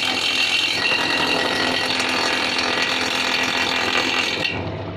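Homemade electric forage chopper running, its grass-trimmer blade chopping fodder with a loud, dense mechanical rattle. The rattle stops about four and a half seconds in, leaving a lower hum.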